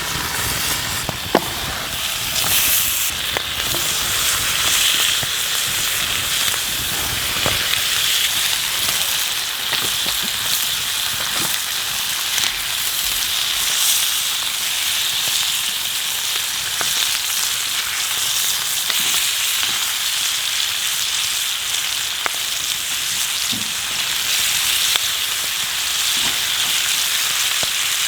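Food frying in a pan, sizzling steadily with scattered small pops.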